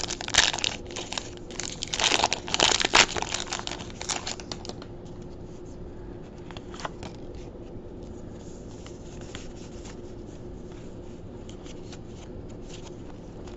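Foil wrapper of a Pokémon trading-card booster pack being torn open and crinkled for the first four or five seconds, then only a few faint scattered ticks.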